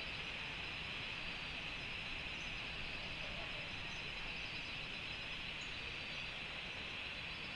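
Steady chorus of night insects, a constant high-pitched drone with a few faint high ticks.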